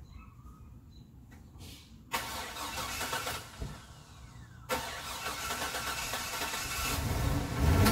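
A Chevrolet Silverado pickup's six-cylinder engine being cranked by its starter in two attempts. The first comes about two seconds in and lasts about a second. The second starts about halfway through, keeps going and grows louder and deeper toward the end.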